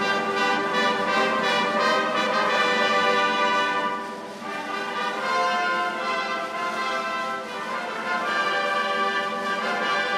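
Military brass band playing held brass chords with drums, with a brief lull between phrases about four seconds in.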